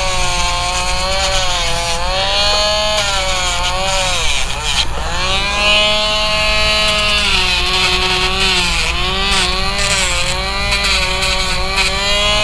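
Rotary pet nail grinder with a sanding drum running while grinding a dog's toenail, its high whine dipping in pitch about four times as it bears on the nail, the deepest dip about five seconds in.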